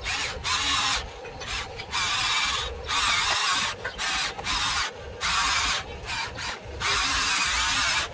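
Radio-controlled toy excavator's electric motors whirring in a string of bursts of half a second to a second each, starting and stopping with short gaps as the arm and tracks are worked.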